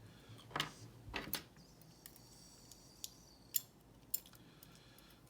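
Small metallic clicks and taps of lock pins, springs and tweezers being handled as the pin stacks are taken out of a padlock core. A few scattered sharp clicks, two within the first second and a half and two more at about three and a half and four seconds.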